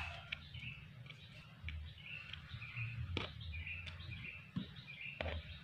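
A bird chirping in short high notes, about two a second, with two sharp clicks about three and five seconds in.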